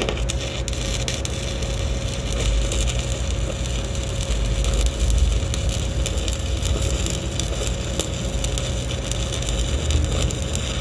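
Stick-welding arc: a 1/8-inch 7018 electrode burning at 127 amps, crackling and sizzling steadily as a fillet weld is run, with a steady low hum underneath.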